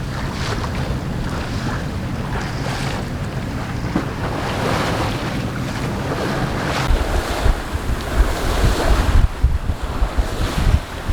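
Wind buffeting the microphone over water rushing along a sailboat under way, with heavier low gusts from about seven seconds in.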